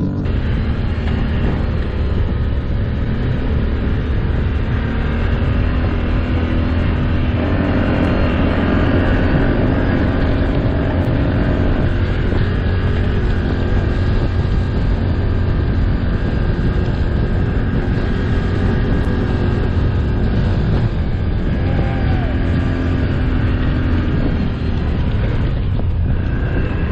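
ATV engine running steadily under load as it climbs a rough, rocky track, heard from the rider's seat.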